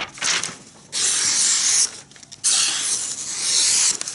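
Freshly honed A2 steel Bravo 1 knife slicing through a sheet of paper in a sharpness test: a short cut, then two long, even cuts of about one second and about one and a half seconds, each a high hissing rasp. The smooth, unbroken cuts show a razor-sharp edge.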